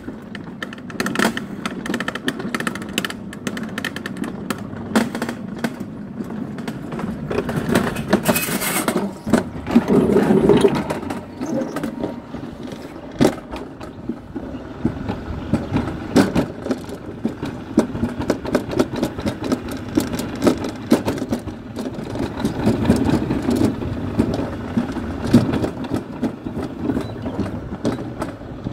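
A summer toboggan sled running down a steel trough, its runners rumbling and rattling with many small clattering knocks. There is a louder surge about ten seconds in.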